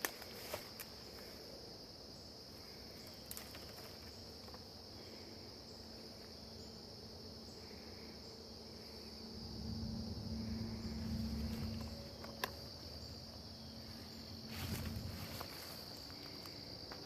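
Steady high-pitched chorus of insects trilling without a break, with a few soft clicks. A low rumble swells in the middle and again near the end.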